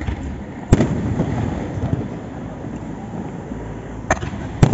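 Aerial firework shells bursting: a sharp bang at the start, a louder one just under a second in, then two more close together near the end, with a low rumble between the bangs.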